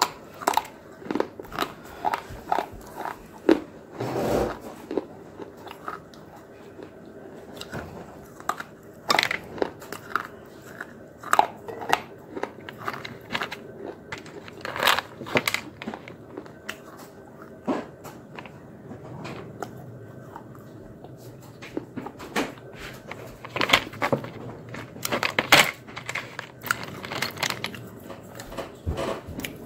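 Close-up biting and chewing of hard, crunchy white sticks: repeated sharp snaps and crunches at irregular intervals, with chewing in between.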